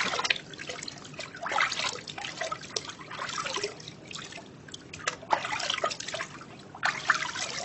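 Bath water scooped by hand and trickling back into a plastic baby bath in about five splashy pours, rinsing shampoo from a newborn's hair.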